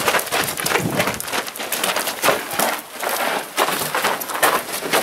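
A dense, irregular run of sharp clicks and knocks, several a second, in close-quarters airsoft play: semi-auto airsoft shots, BB hits on the plywood walls, and players' gear and footsteps.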